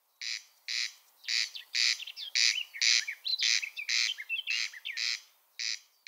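Corncrake giving its rasping double 'crex crex' call, the pairs of dry rasps repeated about once a second. Other birds chirp between the rasps.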